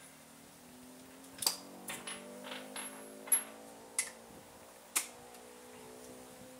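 Scattered sharp metallic clicks and clinks of a socket wrench on the rear differential plug as it is done up after the oil change, over a faint steady hum.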